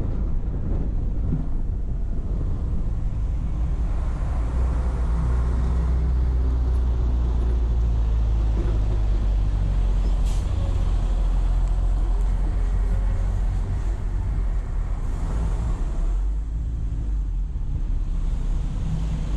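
Car driving on a road: a steady low rumble of engine and tyres, heaviest through the middle, with a brief sharp click about ten seconds in.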